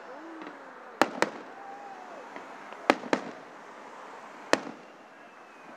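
Aerial fireworks shells bursting with sharp bangs: two close together about a second in, another two near three seconds, and a single one about four and a half seconds in.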